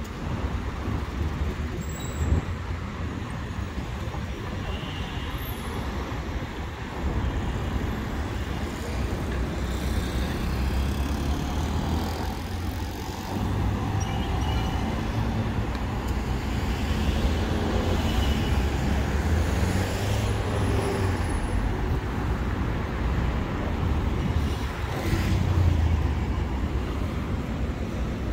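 City road traffic: cars passing one after another over a steady low rumble, swelling as each vehicle goes by.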